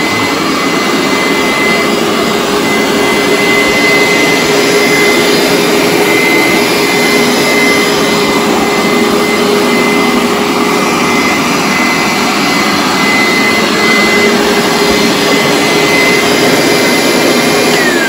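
Hoover SteamVac Dual V carpet cleaner running on a rug, its motor a loud, steady whine with a held high tone. Right at the end the pitch starts to fall as the motor winds down.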